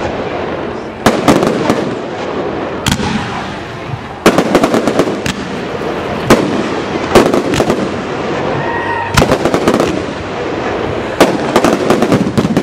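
Aerial fireworks display: shells bursting with sharp bangs every second or so, crowding into a rapid volley near the end.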